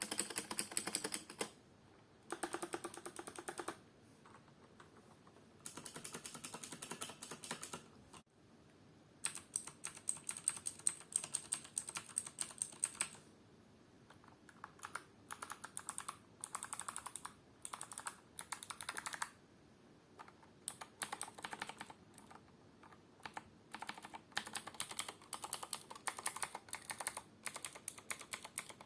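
Clicky mechanical keyboard switches (Kailh BOX White, Cherry MX Blue and Gateron Blue) being typed on in bursts of rapid clicks, with short pauses between the bursts.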